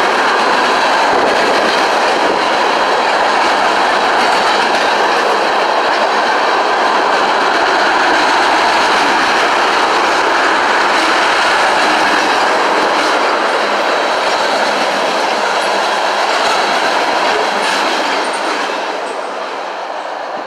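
Freight cars, tank cars among them, rolling past on the rails with a steady, loud rolling noise of steel wheels on track. The noise fades over the last couple of seconds.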